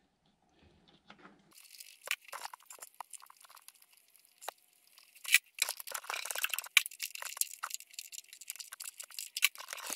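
Nuts being tightened onto the clutch master cylinder's mounting studs with a ratchet and socket: a run of sharp, irregular clicks and light scraping that starts about a second and a half in.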